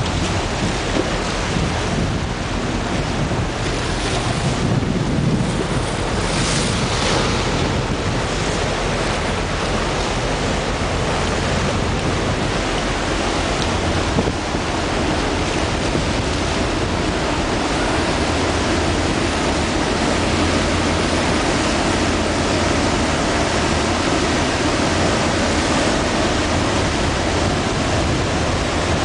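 Steady rush of water churned up by the cruise ship Costa Mediterranea passing close by, with wind on the microphone.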